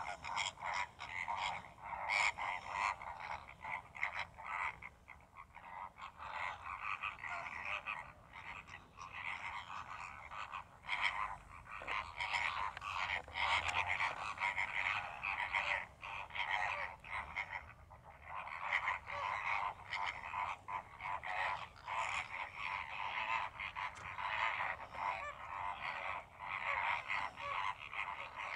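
A flock of greater flamingos calling: a dense, continuous chatter of many overlapping short, croaking calls that swells and eases slightly.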